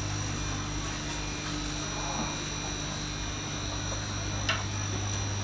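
Steady low electrical hum with a thin, faint high whine above it, the drone of an indoor market hall's electrical equipment. A single short click comes near the end.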